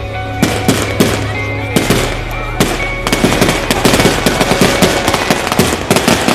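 Fireworks going off over music with held notes: separate bangs in the first few seconds, then dense, rapid crackling from about three seconds in.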